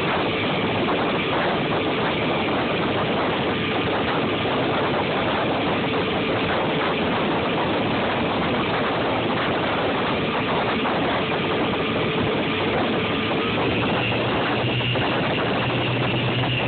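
Motorboat engine running steadily under a loud, even rush of noise, with a lower hum coming in near the end.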